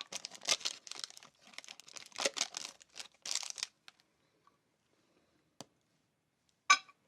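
KitKat candy-bar wrapper crinkling and tearing as it is handled and pulled open, in dense rustling spurts for the first three and a half seconds. Then it goes quiet, with a faint click and one short sharp snap near the end.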